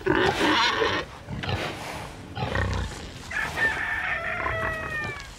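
Farmyard animal calls: pigs grunting and squealing, then one long call that falls slowly in pitch near the end.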